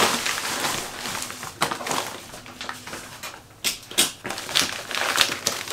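A plastic mailer bag rustling and crinkling as wrapped parcels are pulled out of it, with about six sharp knocks as the packages are handled and set down.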